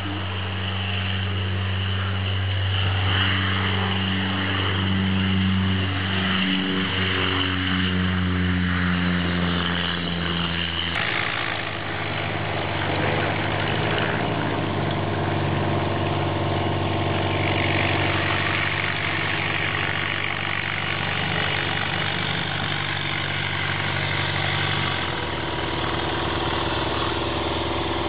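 Pitts Special aerobatic biplane's piston engine and propeller running under power as it takes off and flies. It is a steady drone that shifts abruptly in pitch about eleven seconds in and again a few seconds before the end.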